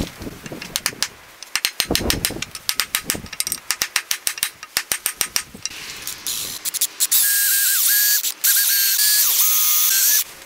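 Rapid metal-on-metal hammer taps on a punch driving old handle wood out of an axe head's eye, then from about seven seconds in a handheld electric drill running as it bores out the wood in the eye, with one short stop partway. The drill is the loudest part.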